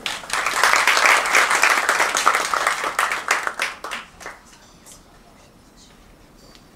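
Audience applauding, loud for about four seconds and then dying away.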